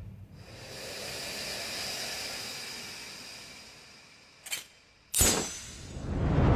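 Anime sound effects: a hissing swell that fades away, then two sharp hits about two-thirds of a second apart, the second louder with a high ringing tail, and a loud rumbling noise building near the end.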